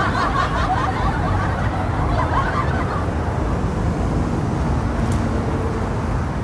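Outdoor city background: a steady low rumble, with people chattering and laughing in the first few seconds.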